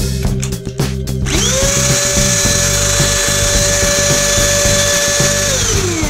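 An Efbe-Schott mini handheld vacuum cleaner (700–900 W) is switched on about a second in. Its motor whines up to speed and runs steadily with a rushing of air, then is switched off near the end and winds down in falling pitch. Funk-style background music with bass guitar plays throughout.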